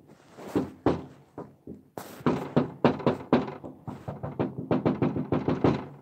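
Handling noise from a phone with its lens covered: a run of close knocks and rubbing thumps on the microphone, scattered at first and then coming quickly, about four or five a second, from about two seconds in.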